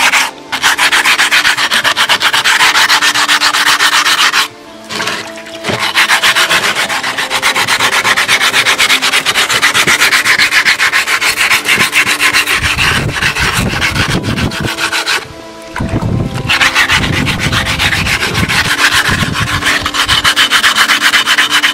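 Coarse wet sandpaper scrubbed rapidly back and forth by hand over a red brick, shaping and smoothing its carved relief. The run of quick strokes breaks off briefly a few times.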